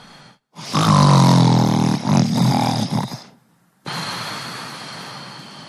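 A person snoring: one loud snore lasting about two and a half seconds, then after a short pause a softer breathy hiss that slowly fades.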